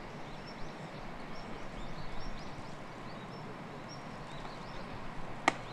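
Open-air field ambience with scattered faint bird chirps. Near the end comes a single sharp pop: a baseball smacking into a leather glove during a game of catch.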